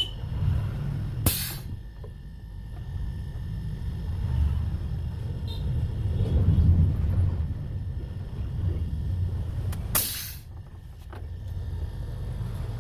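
Two short hisses of refrigerant gas being released, about a second in and again about ten seconds in, over a low, uneven rumble.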